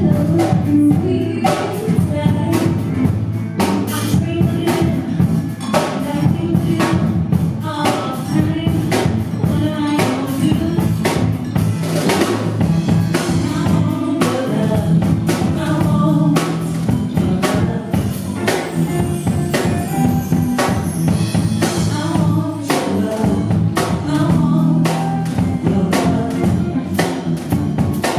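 Music played with a drum kit keeping a steady beat, bass, and a singing voice over it.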